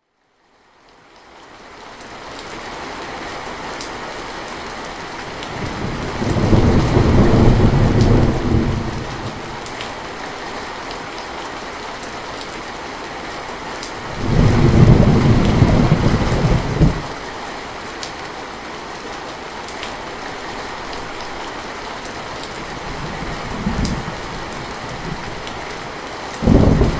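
Steady rain falling, fading in from silence over the first couple of seconds, with rolling thunder rumbling three times: about six seconds in, about fourteen seconds in, and again just before the end, with a smaller rumble shortly before that last one.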